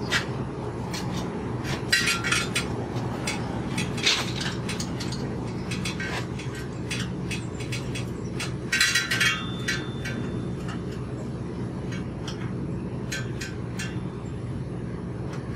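Small metallic clinks and rattles in a few short clusters as screws are taken out and a bicycle chain guard is handled, over a steady low hum.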